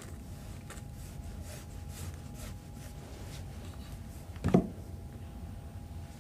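Sliced lime leaves tipped off a wooden chopping board into a plastic mixing bowl: faint light clicks and scrapes over a faint steady hum, with a single louder knock a little past two-thirds of the way through.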